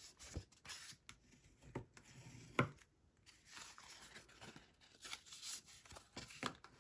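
Bone folder burnishing the score lines of a cardstock card base while the card is folded and handled: quiet paper scraping and rustling with scattered light taps, the sharpest about two and a half seconds in.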